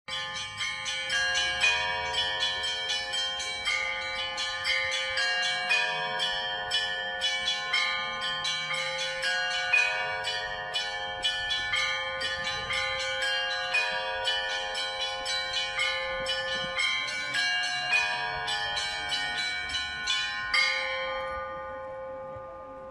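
Church bells ringing, many strikes at different pitches following one another about two to three times a second over a steady ringing lower note. The ringing stops near the end and dies away.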